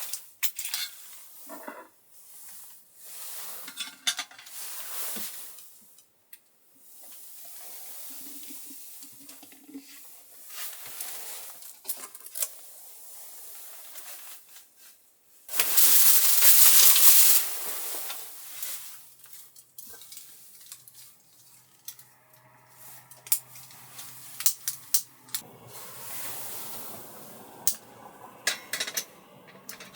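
Cooking sounds: utensils clicking and clinking against pots and pans, with a loud burst of sizzling hiss lasting a couple of seconds about halfway through.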